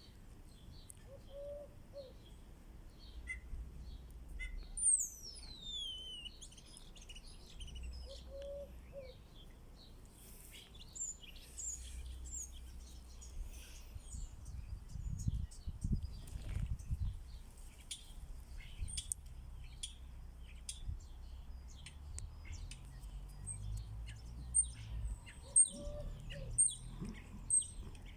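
Birds chirping and twittering, with one clear whistled call sliding down in pitch about five seconds in and a run of quick high chirps near the end.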